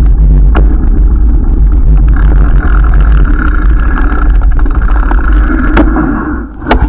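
Loud wind rumble on the microphone of a moving bicycle, with a few sharp clicks; the noise dies away near the end.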